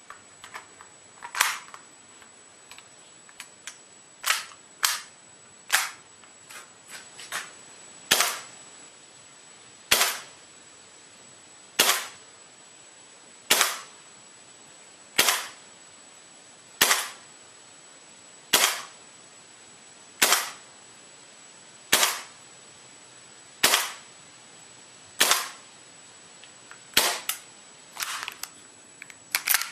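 Gas blowback airsoft pistol, a KSC H&K MK23 SOCOM, firing single shots at a slow, even pace of about one every second and a half or so. Each shot is a sharp crack with the slide's blowback snap. Quieter, irregular clicks come in the first few seconds, and several shots follow closer together near the end.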